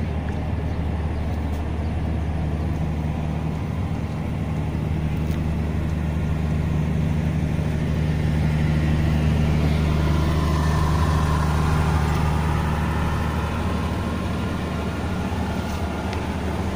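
Millat Express passenger train pulling out, its coaches rolling past with a steady diesel hum and the rumble of wheels on rails. The wheel noise grows louder about halfway through.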